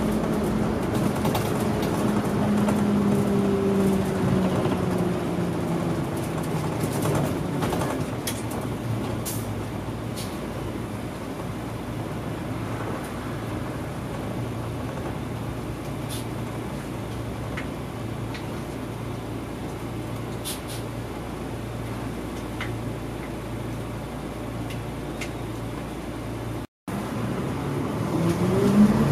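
Cabin sound of an old Mitsubishi Fuso Aerostar diesel bus on the move. The engine note falls over the first several seconds as it eases off, holds steady while cruising, and rises again near the end as it picks up speed. The sound cuts out for a moment shortly before the end.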